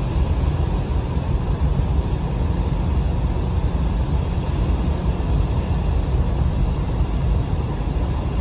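Steady low rumble of a semi truck driving at medium speed, heard from inside the cab: engine and road noise holding even, with no change in pace.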